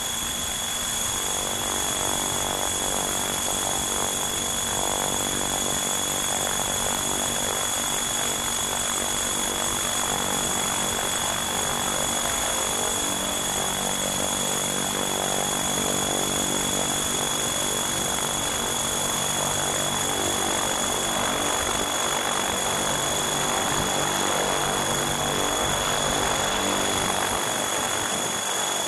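Motors and propellers of a small radio-controlled aircraft carrying the camera, running steadily with a high whine over a broad rushing hiss, heard close up from on board.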